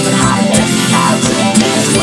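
Instrumental music: guitar over a steady beat, with no singing.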